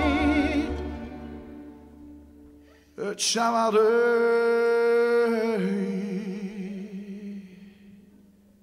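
A male voice sings alone, slow and free, in a Romani gypsy song. A wavering note fades away, then after a short pause a long held note falls to a lower one and dies out.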